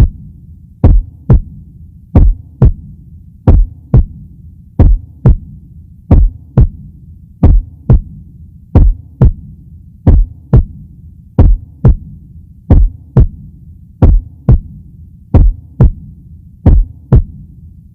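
A slow heartbeat in even double beats, lub-dub, about once every 1.3 seconds, over a low steady hum.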